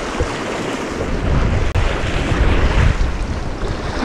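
Sea surf surging and breaking over the rocks below, with wind buffeting the microphone in gusts; it grows louder about a second and a half in.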